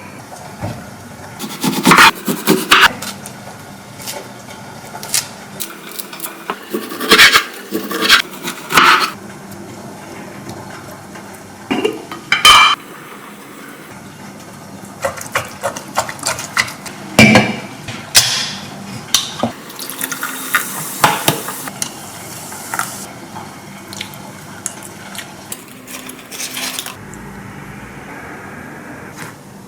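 Kitchen work: pots, dishes and utensils knocking and clinking in many sharp, irregular clatters, with liquid poured now and then.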